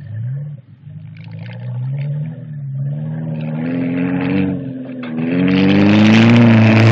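Car engine revving hard, its pitch climbing and dropping back several times under hard driving, growing louder about five seconds in.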